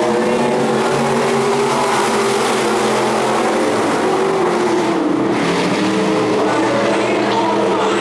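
Stock car engines running hard as a pack of cars races past together: several engines heard at once, a steady loud drone whose pitch rises and falls as the drivers get on and off the throttle.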